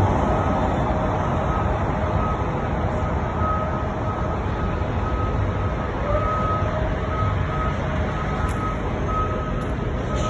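Steady city street traffic noise with a high electronic beep repeating a little faster than once a second.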